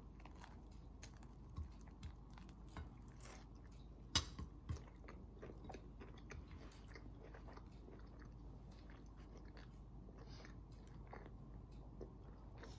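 Faint chewing and mouth sounds of someone eating a sloppy joe sandwich, with scattered small clicks and a sharper click about four seconds in.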